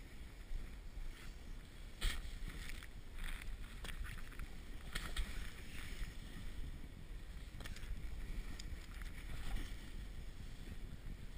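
Snowboard sliding through deep powder snow in tree runs: a steady hiss of the board on the snow with low wind rumble on the camera's microphone. Several brief scrapes come through as the board turns between the trees.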